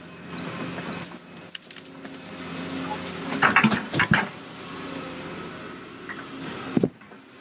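A heavy machine's engine runs steadily. A cluster of loud clanks and bangs comes about three and a half to four seconds in, and another sharp bang comes near the end.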